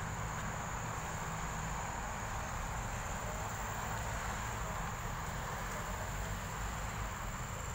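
Steady outdoor ambience: a constant high-pitched drone of insects such as crickets, over a low steady rumble.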